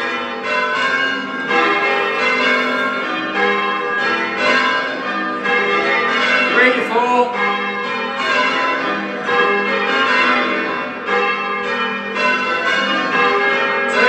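A ring of eight church bells, tenor about 10 cwt in G and cast by John Taylor & Co in 1902, rung full-circle in changes. The bells strike one after another in a steady, unbroken stream.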